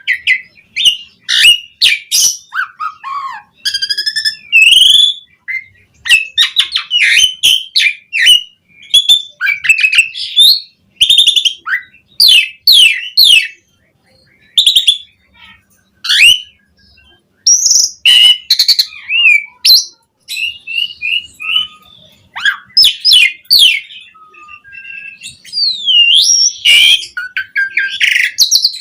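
Asian pied starling (jalak suren) singing a long, vigorous song. It is a fast, varied run of whistles, rattling trills, clicks and sliding notes, with brief pauses between phrases.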